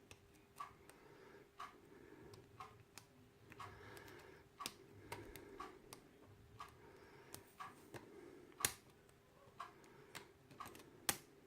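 Faint, irregular small metallic clicks of a hook pick working the pin tumblers in a Yale night latch cylinder under tension, with the plug in a false set from a spool pin; a sharper click comes about three quarters of the way in.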